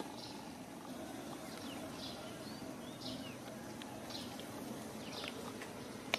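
Short, high chirps repeating about once a second, some sliding in pitch, over a steady low background rumble.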